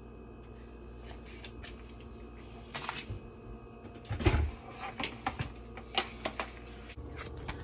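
Plastic vacuum-seal bag crinkling as it is handled and set down on a counter, with scattered clicks and knocks; the loudest is a thump about four seconds in, as a hand goes to the vacuum sealer.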